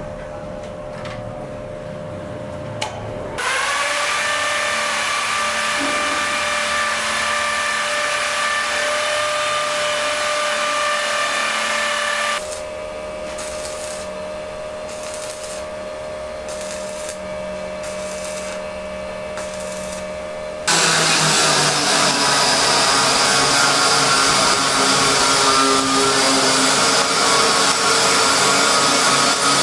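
Electric power tool motors running steadily with a high whine, in several stretches that change abruptly twice partway through; the last stretch is the loudest.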